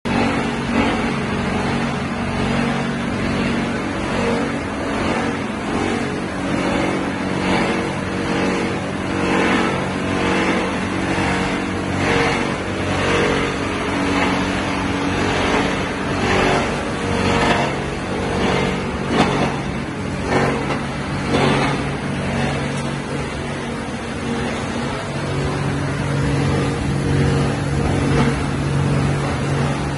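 Plastic washing line running: the electric motors of its conveyor and red crusher hum steadily, as the crusher cuts up used woven PP bags fed into it. Irregular rushes of crushing noise come through the middle stretch.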